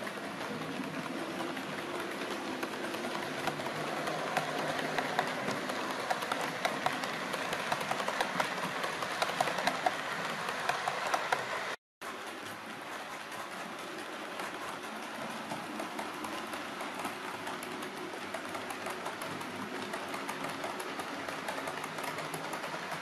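OO gauge model train running on the layout: a Bachmann Class 37 locomotive's motor whirring, with its wheels clicking over the rail joints. The clicking gets louder and busier from about four to eleven seconds in as the train runs close by, and the sound breaks off for an instant near the middle.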